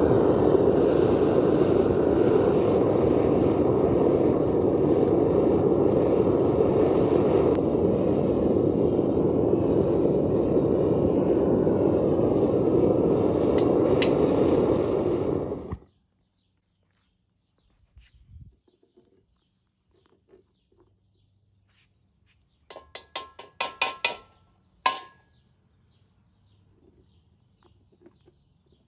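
Gas burner of a metal-melting furnace running with a loud, steady rushing noise that cuts off suddenly about halfway through. A brief cluster of sharp, high sounds follows a few seconds later.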